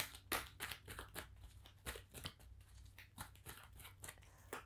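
A deck of oracle cards being shuffled in the hands: faint, irregular papery clicks and slides.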